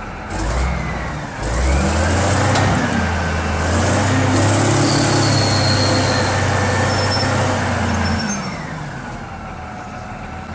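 A heavy vehicle's engine revs up in two steps, runs loud and steady, then drops back to a lower level about eight seconds in.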